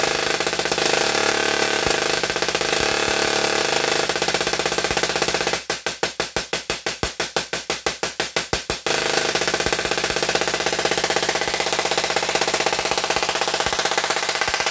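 Tesla coil (a double magnifier) discharging sparks into the air with a loud, continuous buzz. A little over halfway through it breaks into a run of rapid, even pulses, about seven a second, then goes back to the steady buzz.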